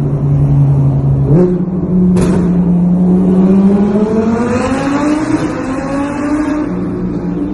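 Audi R8 with a Quicksilver aftermarket exhaust driven through a tunnel: the engine note steps up about a second and a half in, with a sharp exhaust crackle just after, then the revs climb steadily before levelling off.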